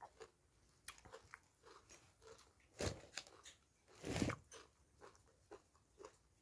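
Close-up chewing of green papaya salad: soft, wet smacking and crunching of the shredded papaya and raw vegetables, with two louder, longer sounds about three and four seconds in.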